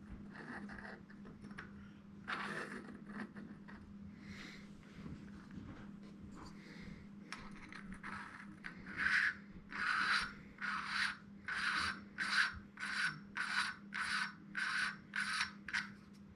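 Threaded metal adapter being screwed by hand: scattered handling rubs at first, then a steady run of short scraping strokes, about two a second, in the second half as the threads are turned.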